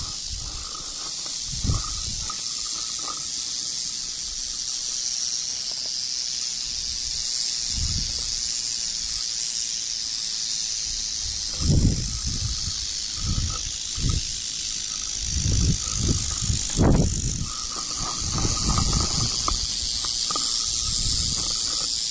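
Rattlesnake rattling its tail in a steady, unbroken high buzz that wavers slightly, with the snake coiled defensively and its head raised. Several dull low thumps sound over it, most of them in the second half.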